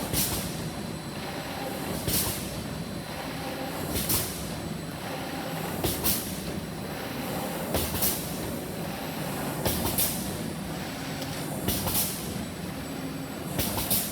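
Automatic plastic bag cutting machine running with a steady hum, making a short sharp double stroke about every two seconds as it cycles through each cut.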